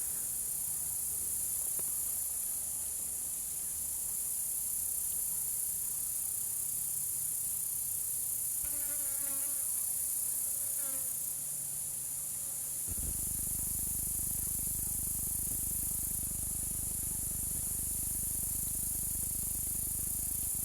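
Swamp ambience: a dense, steady, high-pitched insect chorus. A brief pulsed animal call sounds around the middle, and a low rumble comes in suddenly a little past halfway and carries on.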